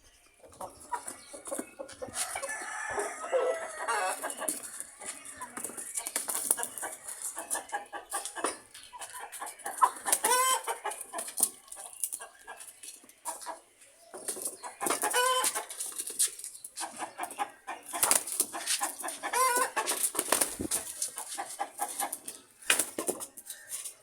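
Chickens clucking and calling over many short scuffling, rustling knocks, with several louder drawn-out calls spread through the stretch.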